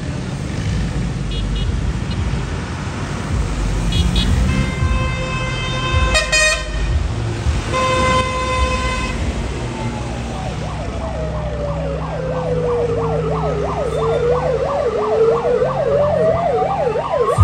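Road traffic with steady engine rumble and several horn honks in the middle; from about halfway a fast-warbling siren-like tone sweeps down in pitch, then climbs back up near the end.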